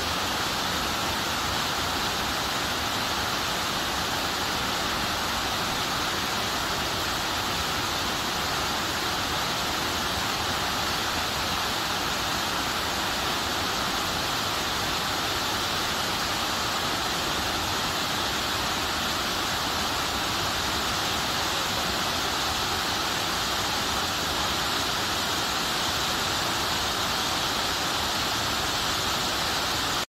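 Waterfall spilling down a steep rock face: a steady, unbroken rush of falling water.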